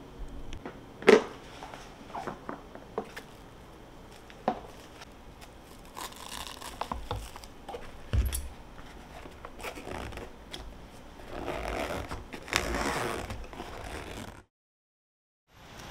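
Handling noises: scattered sharp clicks and knocks, with stretches of rustling and scraping about six seconds in and again near the end, then a sudden cut to silence for about a second.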